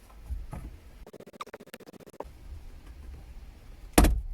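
Plastic interior car trim being pried off its clips: a quick run of rapid clicks and rattles, then one sharp, loud snap near the end as the panel pops off.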